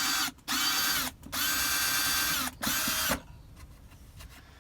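Power drill boring a pilot hole into thin, lightweight cabinet wood, run in four short trigger pulls with the motor whine rising and falling each time; the longest lasts about a second and the drilling stops about three seconds in. The pilot hole is meant to keep the wood from splitting when the latch bracket screws go in.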